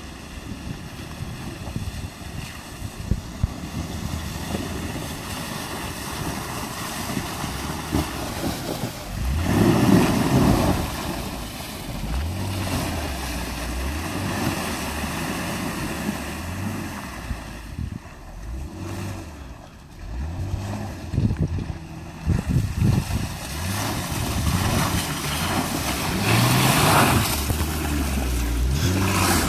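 2014 Jeep Grand Cherokee WK2 driving through mud and standing water in its mud setting without four-wheel low, the engine revving up and down again and again as the tyres churn and splash. The loudest surge comes about ten seconds in, with wind buffeting the microphone throughout.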